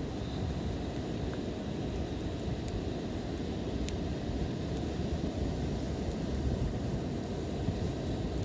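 Campfire burning: a steady low rumble with a few faint crackles, the sharpest about four seconds in.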